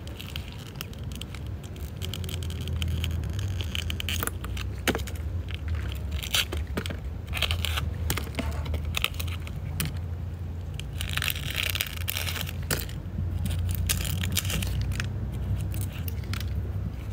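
Dry dead leaves being stripped and rubbed off succulent stems by hand: irregular crisp crackling and rustling with small snaps, over a steady low rumble.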